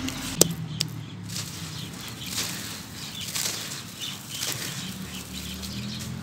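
Hands squeezing and crumbling a gritty sand-and-cement mix in a plastic tub, with powdery grains pouring and rustling in swishes about once a second. Two sharp clicks come about half a second in.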